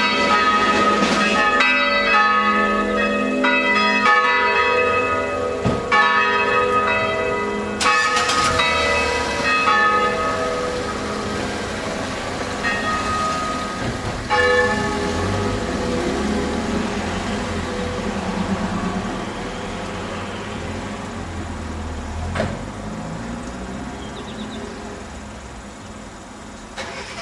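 Three swinging church bells, tuned A-flat, B and E-flat (the oldest cast in 1640, the others in 1952 and 1945), rung together in a festive peal by an electromechanical ringing system. The strokes come thick for about ten seconds, then grow sparser and fainter and stop about halfway, leaving the bells' hum to die away as the peal ends. A low rumble sits underneath in the second half.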